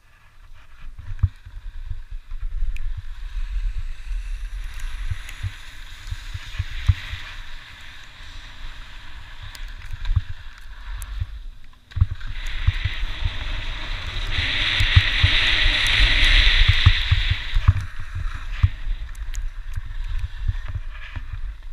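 Skis sliding and scraping over spring snow during a downhill run, with wind buffeting the microphone in low, uneven gusts. The scraping hiss cuts out briefly about twelve seconds in and is loudest for about three seconds soon after, as the skis carve or skid harder.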